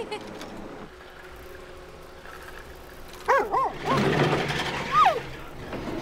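Cartoon rough collie barking: three quick barks about three seconds in, then a longer yelp that falls away near the end, over a rushing hiss.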